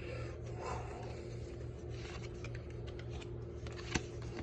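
Pokémon card booster pack being opened by hand: faint rustling and scraping of the pack wrapper over a steady low hum, with one sharp click about four seconds in.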